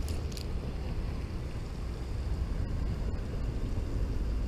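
Wind buffeting the microphone, a steady low rumble, with two brief clicks at the very start.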